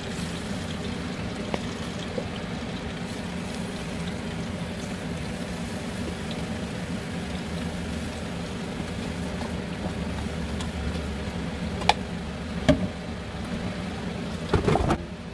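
A steady hiss with a low hum throughout, as chicken thighs are laid into an air-fryer basket with metal tongs. A couple of sharp clacks of the tongs come near the end, then a short clatter as the basket is pushed back into the fryer, after which the hiss drops.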